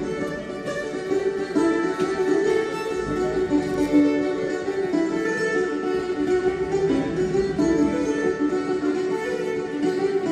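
Irish traditional band playing a lively tune together: fiddle carrying the melody over strummed acoustic guitars and a mandolin.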